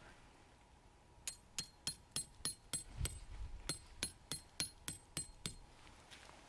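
A hammer driving a metal tent peg: about fifteen quick, even strikes, roughly three a second, each with a bright metallic ring, stopping about a second before the end.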